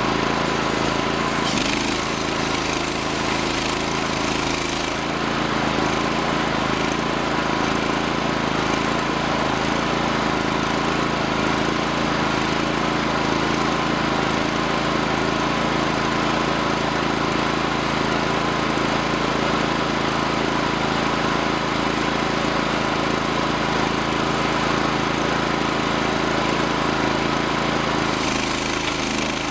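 Small gas engine of a portable bandsaw sawmill running steadily at constant speed.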